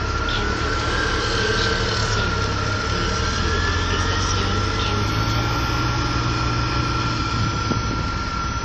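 City transit bus engine running as the bus pulls through a turn and drives off: a steady low drone that swells over the middle few seconds. A constant high, thin whine runs under it.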